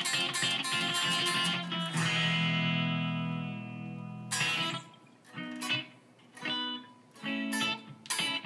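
Gibson Flying V B-2 electric guitar played with the pickup selector in the middle position: quick picked notes, then a chord left to ring for about two seconds, then short chords with brief gaps between them.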